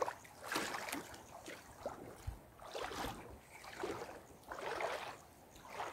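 Water splashing and sloshing in soft swells, about one a second.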